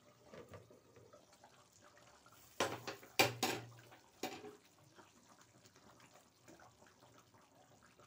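Sharp clinks and knocks of a glass pot lid and metal pans being handled: a cluster about two and a half to three and a half seconds in, and one more just after four seconds. Between and after them a wooden spatula stirs thick kadhi with a faint wet slopping.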